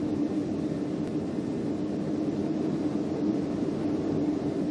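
Steady roar of violent wind and rain during a tornado outbreak, heard from inside a house through a window, with no separate gusts or impacts standing out.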